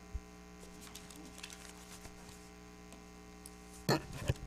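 Steady electrical mains hum, with faint rustles and clicks, then near the end two loud sudden thumps as books and papers are handled against the pulpit and its microphone.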